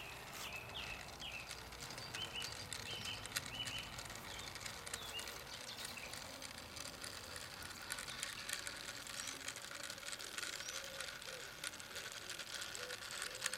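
SM32 garden-railway model locomotive running along its track pulling wagons, with irregular light clicks of wheels on the rails over a faint steady hum. Birds chirp in the first few seconds.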